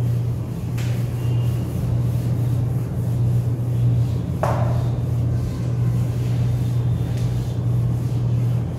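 A whiteboard eraser rubbing across the board as the writing is wiped off, over a loud, steady low hum. There is a short sharp sound about four and a half seconds in.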